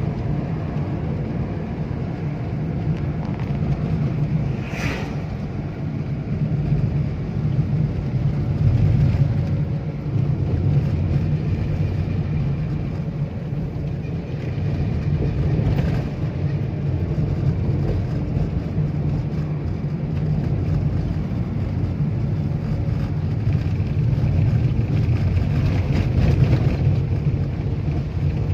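Steady low rumble of a moving vehicle, with one short sharper sound about five seconds in.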